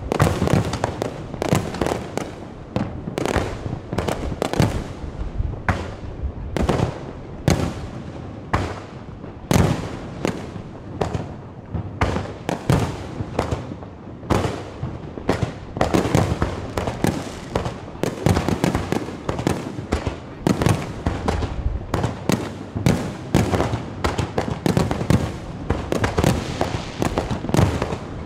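Aerial fireworks shells bursting in a dense, continuous barrage of bangs, several a second, each trailing off in an echo.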